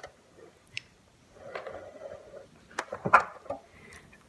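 Faint rustling and a few sharp clicks and knocks from handling close to the microphone, the loudest knock about three seconds in.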